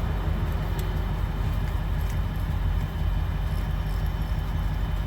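Steady low engine drone, even throughout, with a few faint ticks over it.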